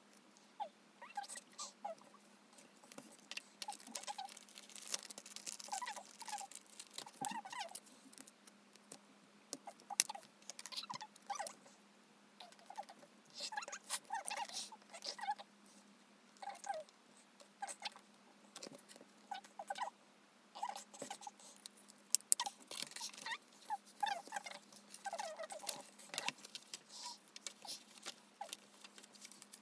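Album contents handled by hand on a desk: irregular rustling and crinkling of paper and plastic sleeves, small taps and clicks, and photobook pages being turned, with a couple of sharper clicks.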